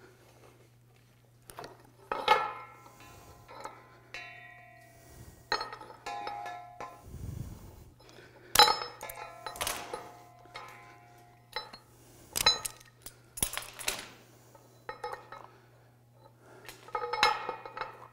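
Scattered metallic clinks and knocks from a steel driveshaft and a pulling wire being handled while a new rubber boot is worked over the ball-and-trunnion joint. Several knocks leave a short ringing tone.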